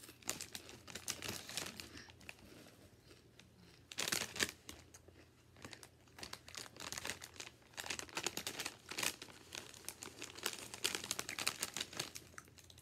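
Plastic potato chip bag crinkling and rustling as a hand rummages in it, in irregular bursts, loudest about four seconds in.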